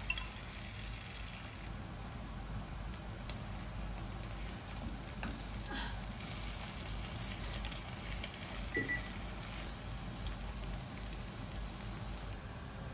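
A thin layer of beaten egg sizzling in a rectangular nonstick tamagoyaki pan over a gas flame. A few light taps of chopsticks against the pan come as the egg sheet is lifted and turned.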